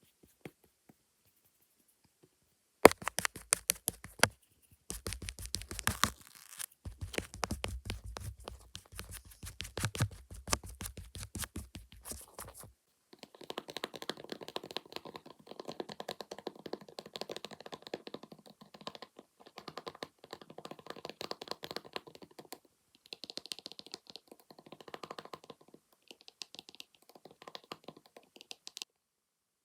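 Very fast, hard tapping on the camera lens or screen, many taps a second, in several bursts starting about three seconds in and lasting about ten seconds. After that come fast scratchy rubbing and brushing strokes on the same surface, in several bursts.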